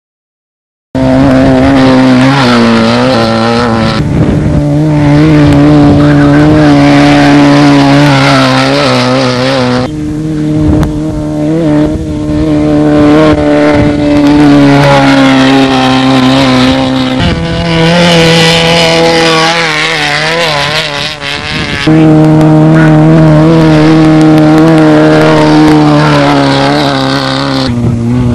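Engines of off-road desert race buggies running hard at high revs, starting about a second in. The engine note wavers up and down with the throttle and jumps abruptly every few seconds as one clip of a racing car gives way to the next.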